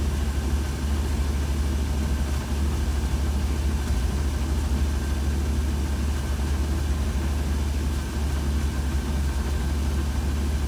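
1966 Cadillac's 7.0-litre V8 on Holley Sniper throttle-body fuel injection, idling steadily at just under 800 rpm with its idle air control motor unplugged. With the IAC disconnected the idle is rock solid, without the hunting up and down that the Sniper's IAC control causes.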